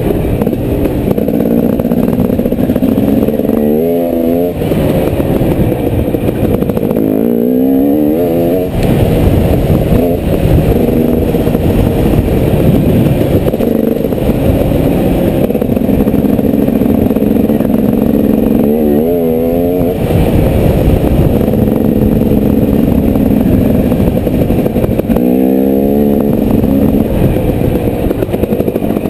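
Dirt bike engine running under throttle, its pitch holding steady for stretches and climbing in quick rising sweeps several times as the revs rise.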